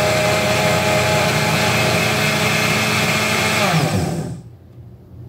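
Countertop blender running on a milk and gelatin mixture, steady and very noisy, then switched off about four seconds in and winding down.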